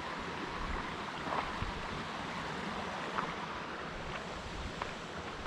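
Steady rushing of a flowing river or creek, with some wind rumble on the microphone and a few faint clicks.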